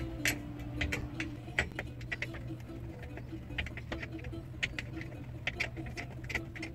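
Irregular metallic clicking of a hand wrench working loose the 12 mm mounting bolts of a truck's brake booster (hydrovac), over a steady low hum.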